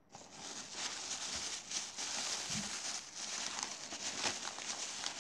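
A hand rummaging through crumpled paper packing in a cardboard box: continuous crinkling and rustling with many small crackles.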